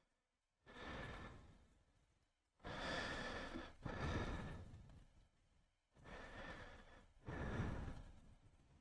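A person's breath close to the microphone: five faint, long, breathy whooshes, each rising quickly and then fading, the middle ones in close pairs.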